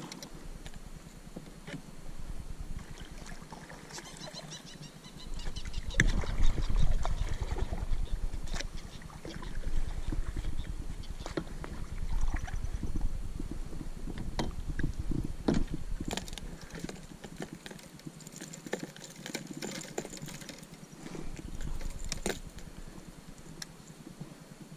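Knocks, clicks and rubbing from handling gear on a plastic fishing kayak, with heavy rumbling on the microphone, loudest between about six and sixteen seconds in.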